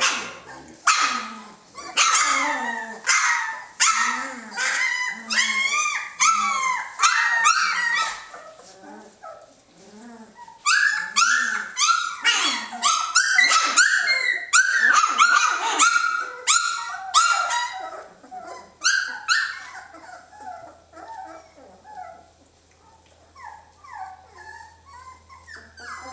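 Three-week-old Jämthund (Swedish Elkhound) puppies yelping, squealing and whining, many short high calls tumbling over one another. The calls come thick during the first eight seconds and again from about eleven to nineteen seconds, then thin out and grow quieter.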